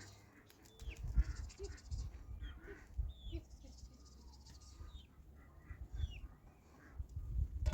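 Short chirping calls of birds, repeated several times, over low thumps and rumble.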